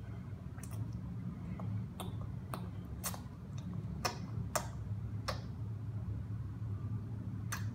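Irregular wet clicks and smacks, about eight of them, from a baby's mouth as she sucks and chews spaghetti off her fingers, over a steady low hum.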